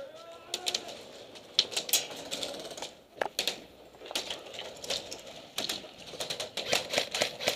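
Airsoft guns firing: irregular sharp cracks and clicks, single shots and quick strings of shots, growing denser near the end.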